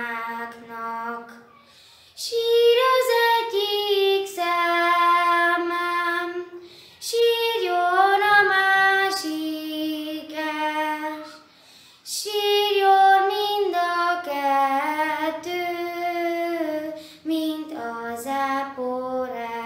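A girl singing solo and unaccompanied, holding long notes in phrases of about five seconds with short pauses for breath between them.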